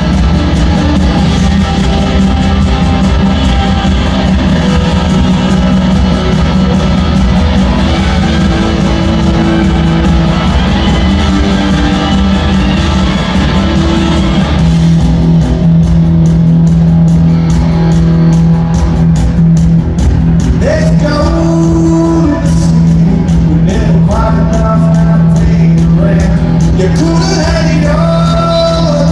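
Rock song with guitars and singing. About halfway through, the full band thins out to a long held low note under a steady ticking beat and a voice.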